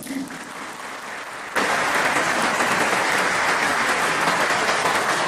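Audience applause, starting suddenly about one and a half seconds in and holding steady.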